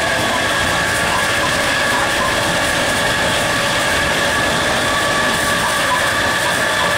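EMD GT36HCW diesel-electric locomotive at speed, heard from its cab: steady engine drone and wheels running on the rails, with a steady high whine on top.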